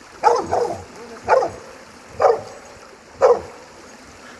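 A dog barking about five times, roughly once a second, the first two barks close together.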